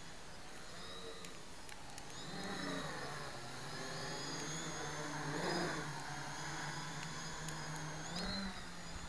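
Small quadcopter with MS2216 900kv brushless motors and 10x4 wooden propellers: the steady propeller hum comes up about two seconds in as it lifts off, holds while it hovers, is loudest about five and a half seconds in, and dies away near the end as it sets down.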